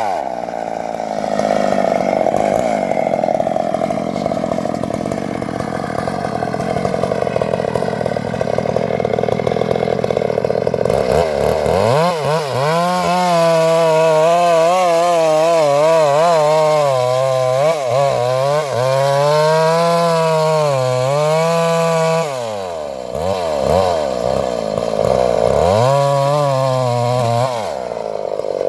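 Chainsaw running and cutting acacia wood, its engine pitch sagging and rising again and again as it works under load, with brief drops in pitch about two-thirds of the way through.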